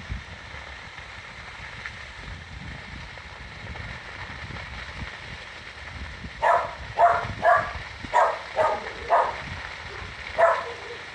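A dog barking, a run of about eight short barks starting about six seconds in, over a steady low rumble.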